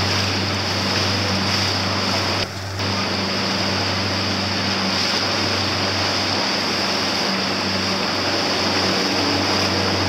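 Motorboat engine running steadily at a constant pitch, with wind and water noise; the sound dips briefly about two and a half seconds in.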